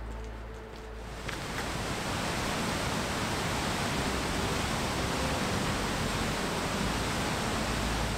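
Mountain torrent and waterfall rushing below a suspension bridge: a loud, steady roar of white water that swells in about a second in.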